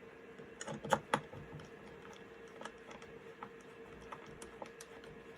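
Small clicks and taps of hand tools and hard drive parts being handled. A quick cluster of sharp clicks comes about a second in, followed by scattered faint ticks, over a faint steady hum.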